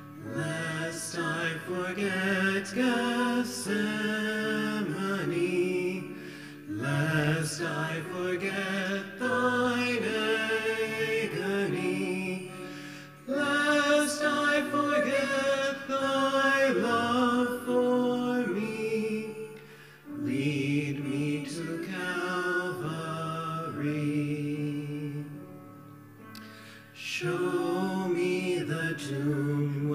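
A woman and a man singing a hymn together with piano accompaniment, in long sung phrases with short pauses between them.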